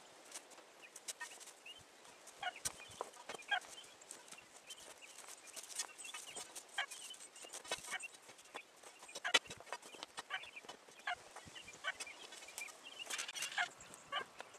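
Chickens clucking in many short, repeated calls, mixed with scattered sharp knocks and clatters from work on the demolished deck.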